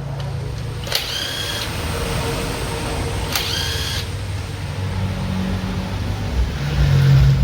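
Two short whirring bursts of a power tool, such as an impact driver or drill, about a second and about three and a half seconds in, over a steady low hum.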